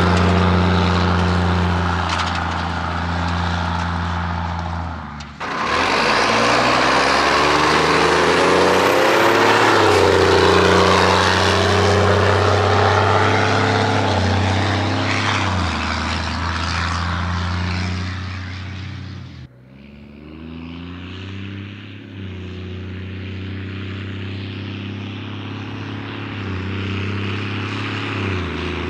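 Exhaust note of a straight-piped Cummins 6CTA 8.3 inline-six turbo diesel working under load in a loaded water truck, its pitch climbing and dropping as it pulls through gear changes. A high whistle rises over it briefly.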